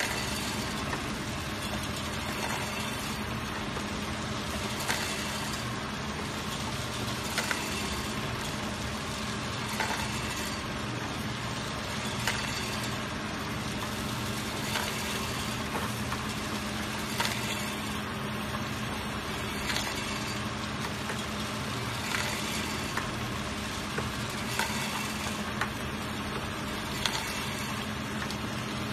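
Electronic capsule counting machine running: a steady motor hum under the continuous rattle of hard capsules in its spinning stainless steel bowl, with a short sharp click about every two and a half seconds.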